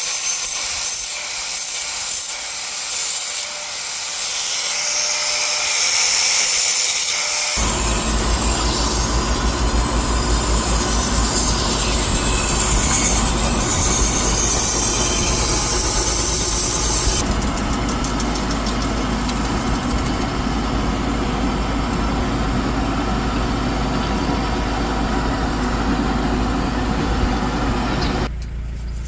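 Knife being sharpened on a knife-grinding machine: at first a high grinding hiss comes and goes in short strokes. About seven seconds in, a steady motor hum starts and runs under continuous grinding until near the end.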